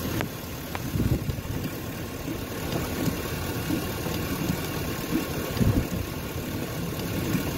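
Truck engine idling, heard from inside the cab as a steady low rumble, with a couple of brief low thumps.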